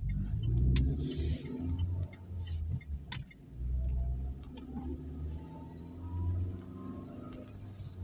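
A car driving on a wet road, heard from inside the cabin: an uneven low rumble from the engine and tyres, with faint rising whines as it picks up speed. Sharp ticks come about a second in and again about three seconds in.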